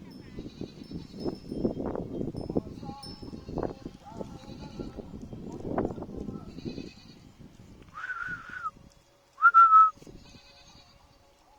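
Goat bleating twice: a short call about eight seconds in, then a louder one a second and a half later. Before them are several seconds of rustling and crunching.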